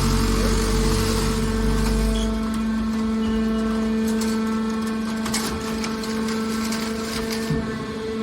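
Hydraulic metal baler running: a steady hum from its hydraulic power unit, with a deeper rumble that drops away after about two seconds and a few short knocks in the second half.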